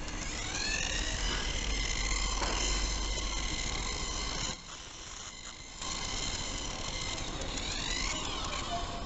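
Small electric motor of a toy remote-control racing car whining. Its pitch rises as the car speeds up, it drops away briefly around the middle, and it revs up again near the end.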